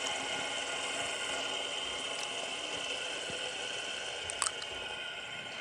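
Fidget spinner spinning on its bearing: a steady mechanical whir with several held ringing tones, slowly fading as it spins down. A small click about four and a half seconds in.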